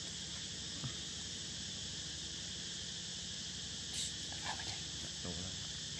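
Steady high-pitched chorus of forest insects droning without a break, with a few faint short ticks or rustles about four to five seconds in.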